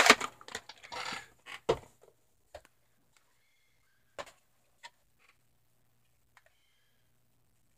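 VHS tape cases being handled on a shelf: a rustle and a quick run of plastic clicks and knocks in the first two seconds, then a few single clicks.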